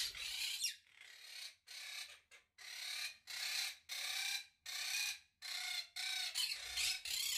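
Monk parakeets (quaker parrots) giving a run of short, harsh squawks, about eleven in a row at roughly one and a half a second, during a squabble over a nest box.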